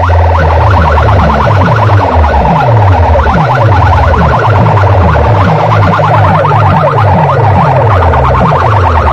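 Large DJ sound system blasting a siren-style competition track: a rapidly warbling, car-alarm-like high tone over heavy bass notes that fall in pitch and repeat about twice a second.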